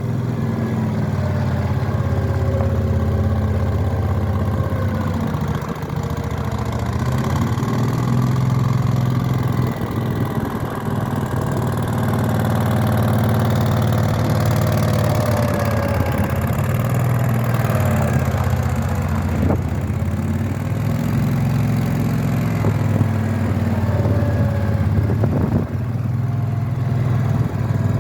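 Skid steer loader's engine running steadily, its pitch rising and falling a little as it is worked, with a few sharp knocks in the second half.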